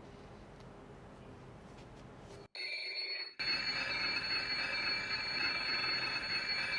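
Smart Wi-Fi siren alarm sounding, set off by a water-leak sensor dipped in water. A high-pitched, steady electronic alarm tone starts about two and a half seconds in, breaks off for a moment, then continues. It is very loud, with a hand held over the speaker.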